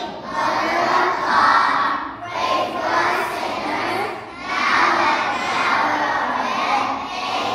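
A group of young children singing together, in phrases of about two seconds with short breaks between.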